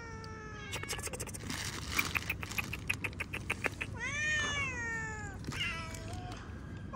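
Hungry stray cats meowing for food: a meow trailing off at the start, then a long meow that rises and falls about four seconds in and a short one after it. In between, about two seconds in, comes a run of quick clicks, roughly five a second.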